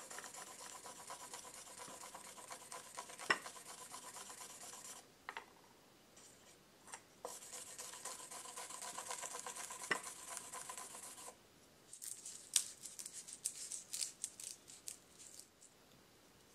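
Block of polishing charcoal rubbed back and forth with water over the cured black urushi lacquer of a tanto scabbard, wet-polishing the coat smooth before the next layer. It goes in two long spells of steady rubbing with a thin squeaky tone and a break between them, then a run of short, sharper strokes near the end.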